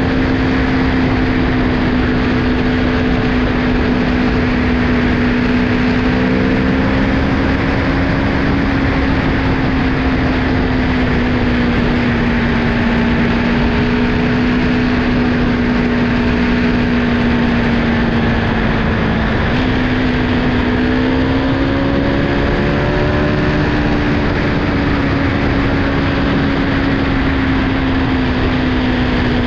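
Aprilia Tuono V4 1100 motorcycle's V4 engine cruising at a steady speed under a constant rush of wind noise. The engine note holds one pitch with small dips, then steps up and rises about two-thirds of the way through before easing back.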